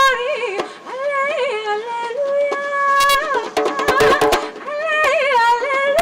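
A solo voice singing a melody in long held notes that waver in pitch, with a few drum strikes about three and four seconds in.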